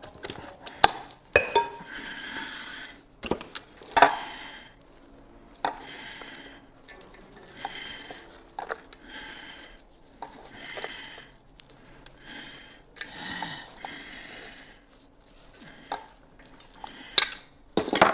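Shredded red cabbage rustling as it is handled by the handful from a stainless steel bowl into a glass Kilner jar. Repeated short rustles are broken by sharp clinks and knocks of metal and glass, the loudest about a second in, around four seconds and near the end.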